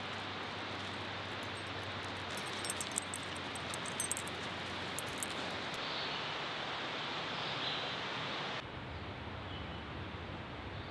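Steady rushing of a river, with light jingling clicks for a few seconds about two seconds in. The rush drops a little about three-quarters of the way through.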